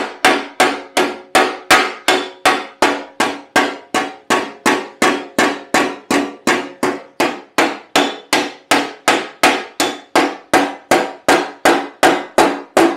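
Hammer striking the steel legshield bead of a Lambretta scooter against a square dolly block held behind it, knocking the kinks out of the splayed rubber-strip bead. Even, steady blows at roughly three a second, each ringing briefly.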